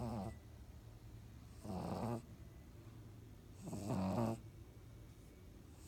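A pug snoring in its sleep: short pitched snores about every two seconds, each lasting about half a second.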